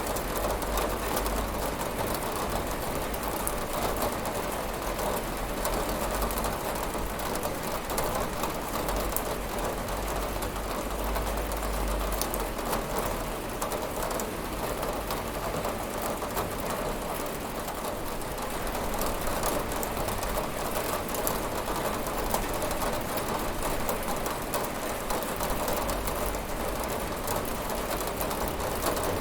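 Steady rain falling, with a dense patter of drops on a window pane over a low, even rumble.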